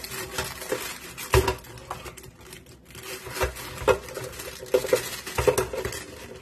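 Graham crackers being dropped and stood upright in a clear hard-sided storage canister: several sharp knocks and clatters as the crackers strike the canister walls.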